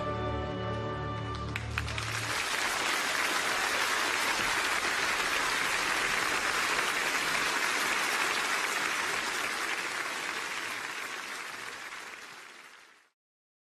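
An orchestra's last held chord ends about two seconds in, and a large audience applauds, the applause fading out near the end.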